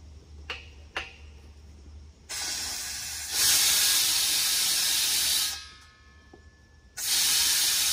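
Compressed air and water blowing out of an air compressor tank's drain line as the drain valve is opened: a hiss that starts softer and then opens up fully for about two seconds, stops, and comes again in a shorter burst near the end, purging the moisture from the tank. Two light clicks come before it.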